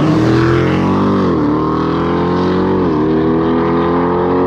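Jeep Grand Cherokee Trackhawk's supercharged V8 at full throttle on a drag launch. The pitch climbs through each gear, with upshifts about a second and a half and three seconds in.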